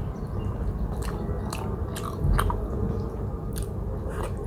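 Close-up chewing of buffalo-meat momo dumplings, with wet mouth smacks and clicks every half second or so.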